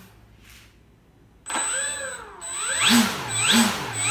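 The RocHobby NXT Nemesis's 3648 870kv brushless motor spinning its 10x10 propeller in a hand-held static run-up: it starts suddenly about a second and a half in, then is throttled up and down repeatedly, a whine rising and falling about every two-thirds of a second.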